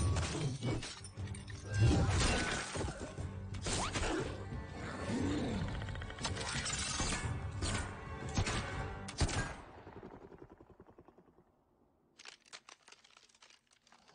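Film soundtrack: dramatic score mixed with fight sound effects, sharp impacts and a shattering crash, dying away about ten seconds in. Near the end comes a short run of quick clicks.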